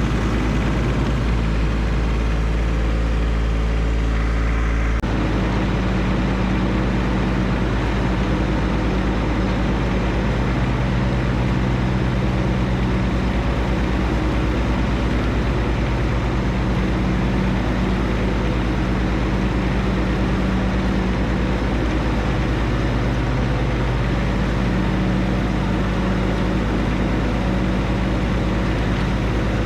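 John Deere 1025R compact tractor's three-cylinder diesel engine running steadily while mowing with the 60-inch mower deck. The engine note changes abruptly about five seconds in, then holds steady.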